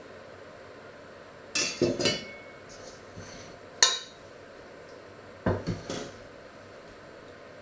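Steel kitchenware being handled, a bowl and ladle clattering: three short bursts of knocks and clinks about two seconds apart, the sharpest clink in the middle.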